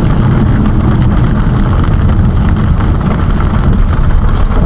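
Steady engine and road noise of a vehicle driving, heard from inside the cab: a loud, even low rumble with no change in pitch.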